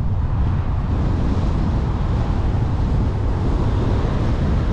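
Steady rush of a moving car's road and wind noise, with a deep rumble of wind buffeting the microphone.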